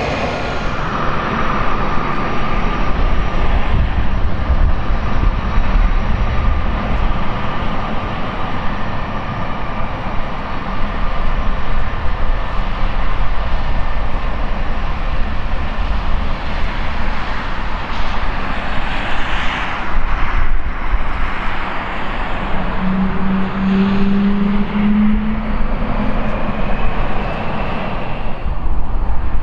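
Two Pratt & Whitney PW4158 turbofans of an Airbus A300F4-600R freighter at taxi power as it rolls past. The jet noise runs steady, with a faint high whine over the rush of the engines.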